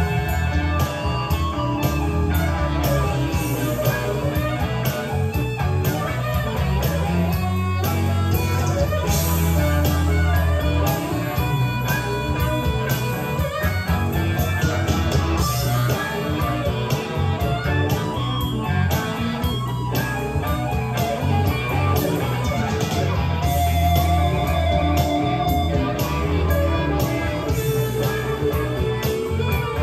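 Blues-rock song with electric guitar and a steady beat, played back from a freshly recorded cassette on a Nakamichi Dragon deck.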